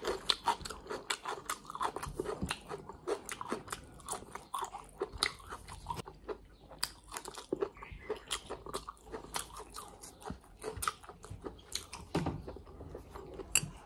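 Close-up chewing of a mouthful of chicken gizzards, liver and rice, heard as many quick, irregular clicks several times a second.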